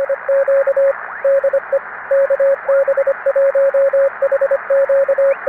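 Morse code: a single mid-pitched tone keyed in short and long elements, over steady radio static, as a CW signal sounds through an amateur radio receiver.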